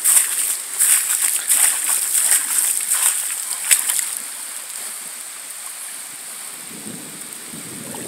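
Splashing water over flooded ground, crackly with many irregular clicks for about four seconds, then settling into a steadier, quieter hiss.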